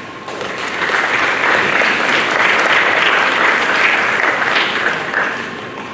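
Audience applauding. It starts a moment in, holds steady, then dies away near the end.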